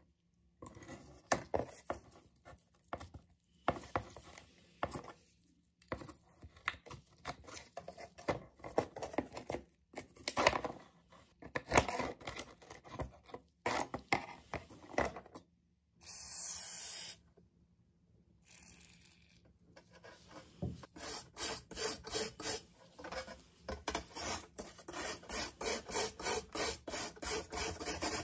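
Hand abrasive scraping and rubbing on a rusted steel knife blade, irregular strokes at first, then a regular back-and-forth of about two to three strokes a second in the last third. A short steady hiss comes about midway.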